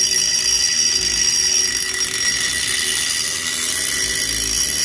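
WEN 23072 cordless rotary tool running steadily at speed with a high whine, its small grinding bit held lightly against a steel angle.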